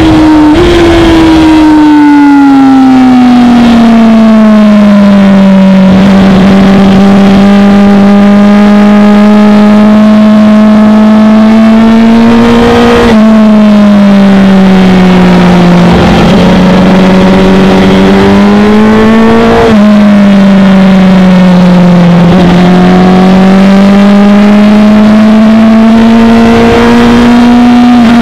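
Onboard sound of a Honda SC77 CBR1000RR's inline-four engine on track with wind rush. The engine note sweeps down and back up in long glides as the throttle is closed and opened. It drops sharply at gear changes about 13 and 20 seconds in and again at the very end.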